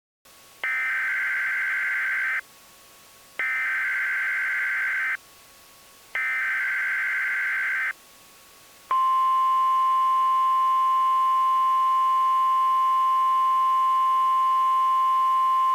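Emergency Alert System header: three identical bursts of screeching digital data tones, each just under two seconds with about a second between. About nine seconds in, a loud, steady single-pitch attention tone near 1 kHz begins.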